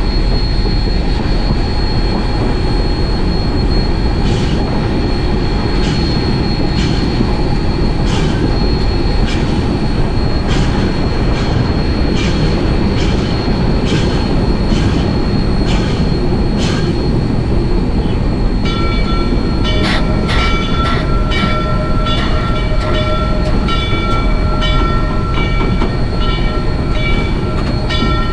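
Rio Grande Southern No. 20, an 1899 4-6-0 steam locomotive, running, heard from its cab: a steady rumble with regular clicks. A high, steady squeal joins in about two-thirds of the way through.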